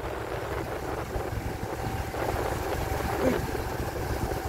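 Motorbike engine running steadily while riding, with wind rumbling on the microphone.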